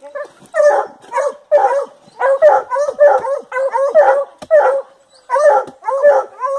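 Hunting hound barking in a fast, steady series, about two loud barks a second, baying at a paca holed up in its burrow.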